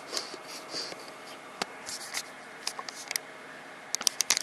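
Steady whir of a running desktop PC with light clicks and taps scattered over it, and a quick run of sharp clicks near the end.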